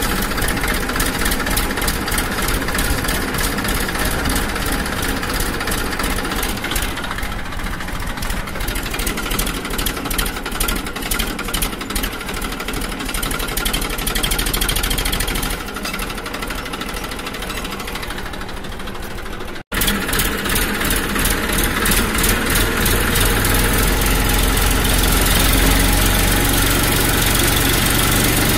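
Small electric gear motors of a cardboard model backhoe loader running, a steady whirring buzz with rapid, even gear ticking. It softens for a few seconds, breaks off abruptly about twenty seconds in, then comes back louder.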